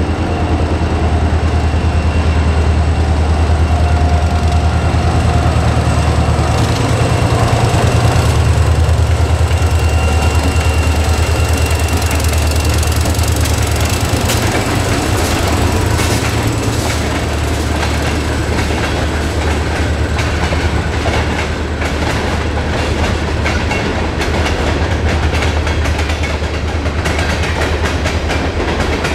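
Diesel freight train passing on an overhead bridge. The locomotives' engines make a steady deep drone, then the freight cars roll past, their wheels clacking rhythmically over the rail joints through the later half.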